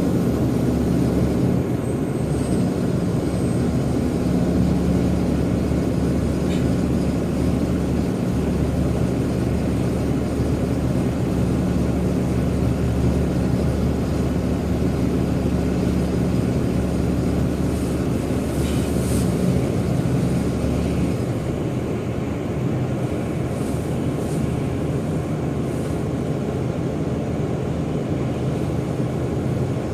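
Jet airliner noise at an airport: a steady hum carrying low tones that stop about two-thirds of the way through, leaving a slightly quieter noise.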